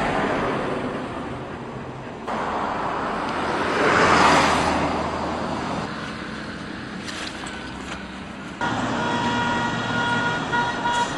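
Road traffic noise from cars passing on a busy street, swelling as a car passes about four seconds in. A steady high tone, like a horn, sounds over the last couple of seconds.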